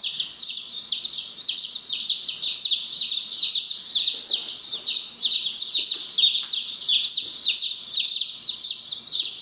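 A brood of Light Brahma chicks peeping nonstop, many high, short, downward-falling peeps overlapping.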